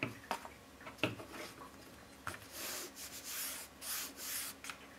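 Hands rubbing and smoothing a sheet of heavy watercolour paper, pressing a freshly glued album page down onto its spine strip. A few sharp taps of paper come in the first half, and several sweeping rubbing strokes in the second.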